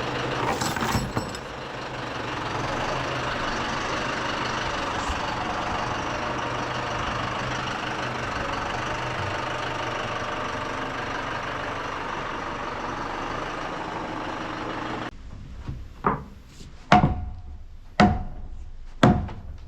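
An engine idling steadily. It cuts off abruptly, and four sharp knocks follow about a second apart, each with a short ringing tail.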